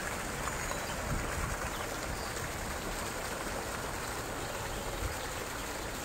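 Public fountain's water splashing steadily into its basin.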